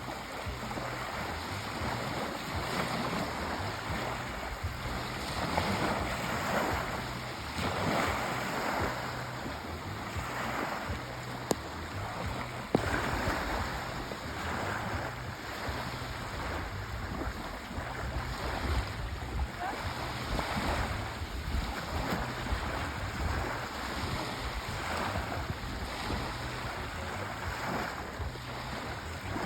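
Sea waves washing in and breaking on a shore, a steady rushing noise that swells and ebbs every couple of seconds.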